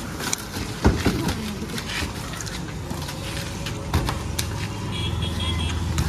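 A motor vehicle running on the street, its engine hum coming up about five seconds in. There are two sharp knocks, about a second in and about four seconds in.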